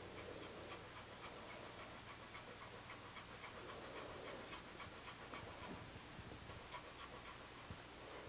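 Newborn sproodle puppy breathing and snuffling faintly, with many small quick clicks and ticks.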